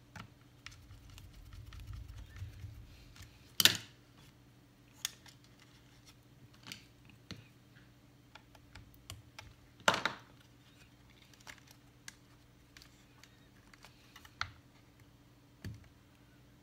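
Scattered small clicks and taps of a screwdriver, screws and fingers working on the opened laptop's parts during reassembly, with two sharper knocks about four and ten seconds in.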